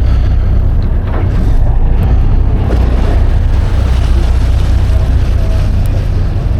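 A boat's engine running steadily with a low hum, over wind and water noise.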